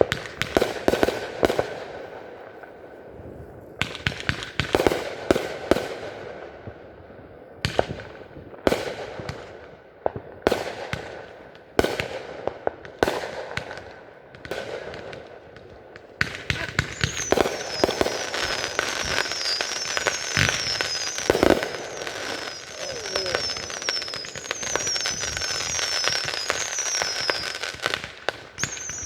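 A fireworks display: shells go off with sharp bangs every second or two, each trailing into crackle. About halfway through the bangs give way to a dense, continuous crackling with a repeated high, falling chirp above it.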